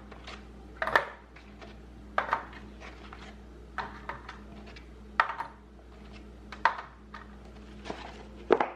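Containers, jars and dishes being handled during a fridge clean-out, clinking and knocking against shelves and each other. There are about seven separate knocks, roughly one every second or so.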